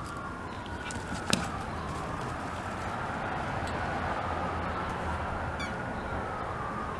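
A distant siren wailing, its pitch sliding slowly up and down over several seconds. A single sharp click cuts in a little over a second in.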